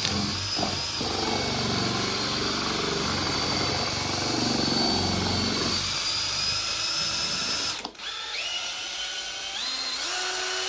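Cordless drill spinning a paddle mixer in a bucket of pond top coat, mixing in the catalyst: a steady motor whine. Near the end it stops briefly, then starts again and speeds up in steps.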